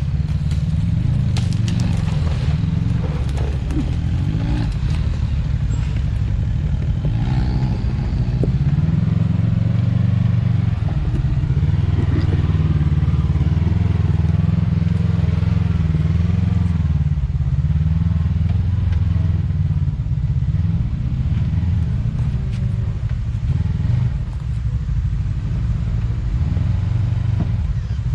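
Side-by-side UTV engine running at low speed, its revs rising and falling as it works over rocks, with occasional knocks and clatter.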